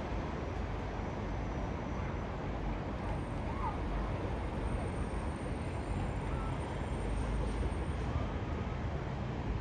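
Twin-engine widebody jet airliner flying high overhead: a steady, distant engine rumble.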